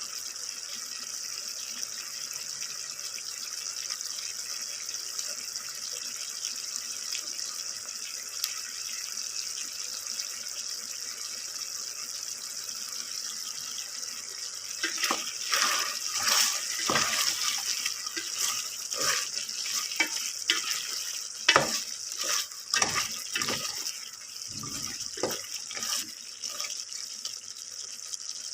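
Chicken feet sizzling in oil in a pan, a steady hiss, with knocks and scrapes of stirring in the pan from about halfway through.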